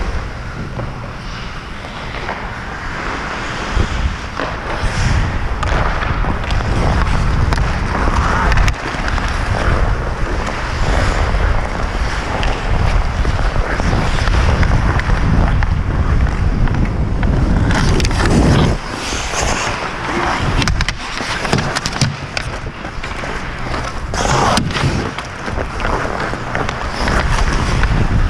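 Hockey skate blades striding and scraping on the ice, heard close up with wind rumbling over the microphone as the skater moves. A few sharp knocks come in the second half.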